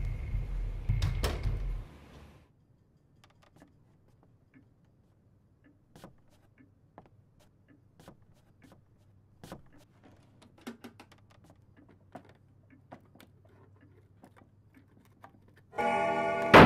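Sparse small clicks, knocks and rustles in a quiet room as a chest of drawers is searched by hand. A low rumble with a sharp knock cuts off about two seconds in, and loud guitar music comes in near the end.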